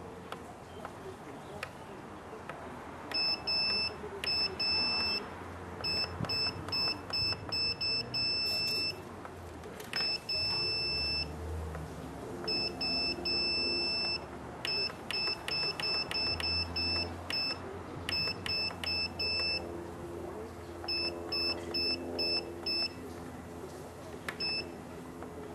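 Turnigy 9X radio transmitter beeping as its menu keys are pressed: a long series of short beeps starting about three seconds in, some in quick runs and a few held longer.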